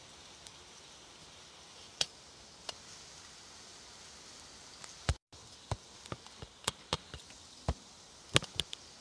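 Steady hiss of heavy typhoon rain and wind, with scattered sharp clicks and knocks. The clicks come thicker in the second half.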